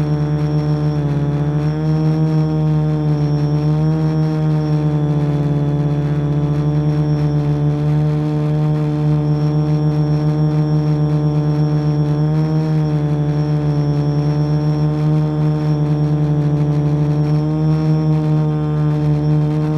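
Quadcopter's electric motors and propellers humming steadily in a hover, heard close up from the camera mounted on it; the pitch wavers slightly every couple of seconds as the motor speeds shift.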